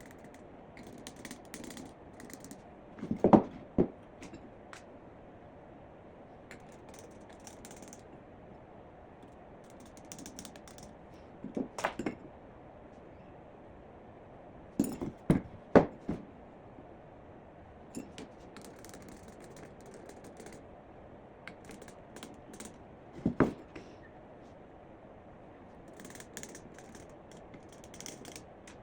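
Handling and work noises: scattered sharp knocks and clacks, in small clusters about a second or two in, twelve seconds in, fifteen to sixteen seconds in and twenty-three seconds in, between quieter rustling and light clicking.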